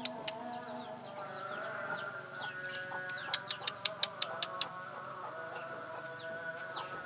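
Chickens and small birds calling: a stream of short, high, falling chirps over steadier tones lower down. Runs of sharp clicks come at the start and again about three to four and a half seconds in.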